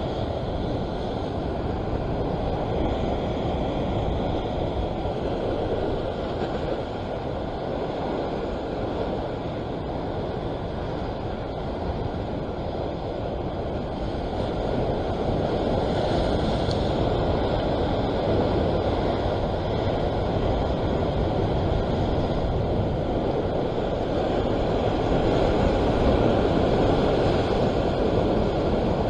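Ocean surf breaking against a rock ledge, mixed with wind on the microphone: a steady rushing noise that gets a little louder in the second half.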